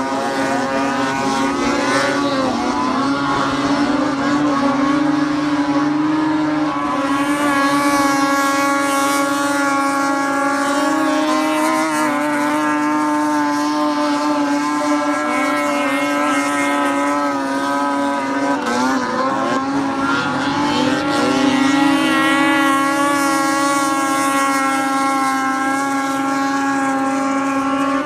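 Several racing snowmobiles' two-stroke engines running at high, steady revs as the sleds skim across open water, one held engine note under others that rise and fall in pitch as sleds pass.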